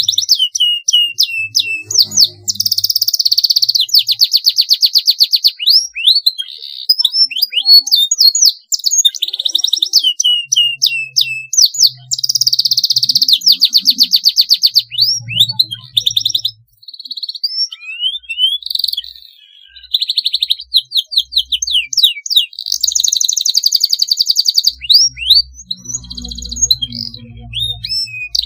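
Canary singing a long rolling song: fast buzzy trills alternating with quick down-slurred whistled notes, in near-continuous phrases broken by short pauses about two-thirds of the way through.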